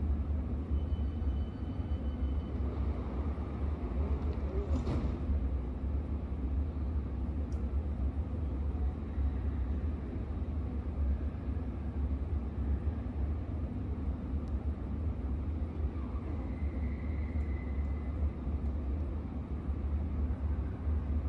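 Steady low rumble at an Underground station platform, with a faint brief high tone near the start and another about two-thirds of the way through.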